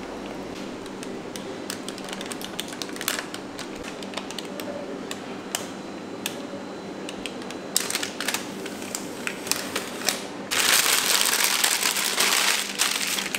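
Silicone spatula scraping and tapping against a stainless steel bowl of thick melted chocolate, in scattered clicks. Near the end, a plastic piping bag crinkles loudly for about two seconds as it is gripped and twisted. A faint steady hum runs underneath.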